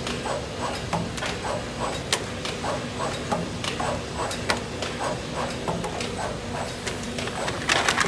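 Zhengrun ATJ400 automatic corner taping machine running, a steady hum with a fast, regular clicking from its mechanism, a little louder near the end.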